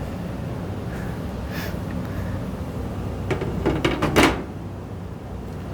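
Tempered glass side panel of a PC case being handled, giving a few knocks and clicks, the loudest a cluster about four seconds in, over a steady low hum.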